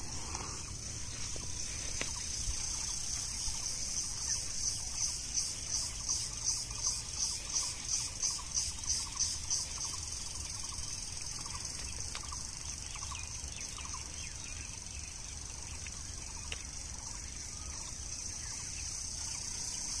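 A steady high-pitched insect chorus that pulses at about two to three beats a second for several seconds, then settles back into an even drone.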